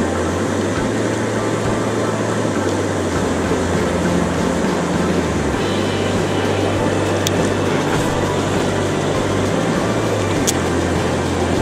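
A motor running steadily, with a low hum that changes pitch about five and a half seconds in, over a constant rushing noise. Two faint ticks come in the second half.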